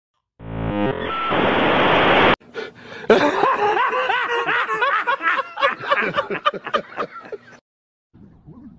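Dial-up modem handshake: a burst of screeching static that cuts off suddenly, then a man laughing loudly for several seconds.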